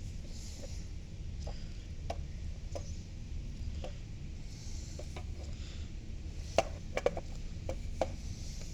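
Handling noise from a fire alarm device being fiddled with by hand: scattered light clicks and knocks, with a few sharper taps about two-thirds of the way through, over a low steady background rumble.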